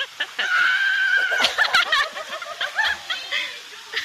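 Women in the water shrieking and laughing: a long, wavering high-pitched squeal starts about half a second in and lasts about a second, followed by short bursts of giggling.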